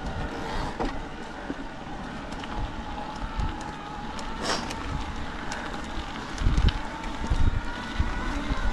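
Mountain bike riding down a dirt trail: a steady rolling rumble with wind noise and scattered small clicks, and two heavier thumps about six and a half and seven and a half seconds in as the bike hits bumps.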